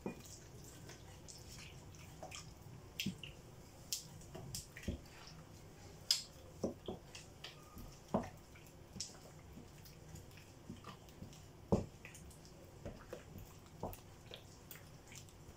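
Wooden spoon stirring thick crêpe batter in a bowl: irregular soft clicks and wet squelches as the spoon knocks the bowl and works the flour and milk, the batter still lumpy and being mixed smooth as milk is added little by little.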